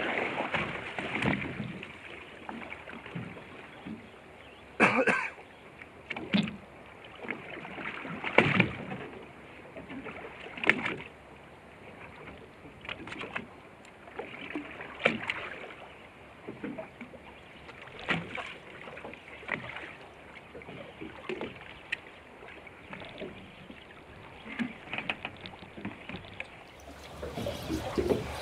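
Water slapping and lapping against the hull of a small fishing boat at sea, with irregular sharper splashes every few seconds, the loudest about five and eight seconds in.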